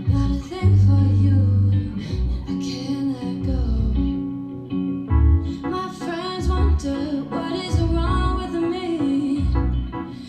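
A song with singing, guitar and heavy bass notes, played through Bang & Olufsen Beolab 28 active speakers.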